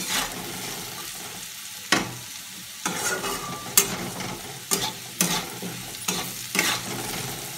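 Diced potatoes sizzling in oil in a kadhai while a flat metal spatula stirs them, scraping and knocking against the pan about once a second. The potatoes are being fried with turmeric and salt.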